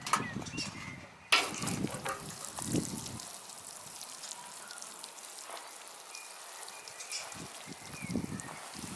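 Running water with a steady hiss, starting suddenly about a second in after a few low knocks.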